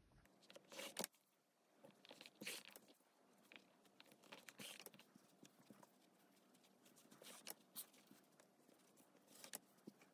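Faint scattered rustles and scratches of velvety yarn being drawn through crochet stitches with a yarn needle, and of hands handling a stuffed crochet toy while sewing its head to its body.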